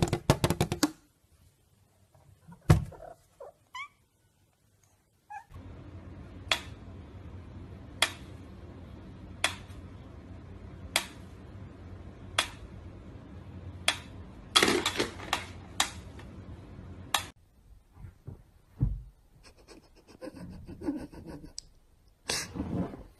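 Mechanical pendulum metronome ticking slowly, one sharp tick about every second and a half, over a steady background, with one louder sound breaking in part way through. It is preceded by a single thud and followed by a quieter stretch of faint, scattered sounds.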